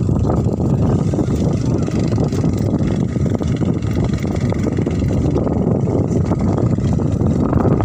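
Strong wind buffeting the microphone: a loud, continuous low rumble that rises and falls in gusts.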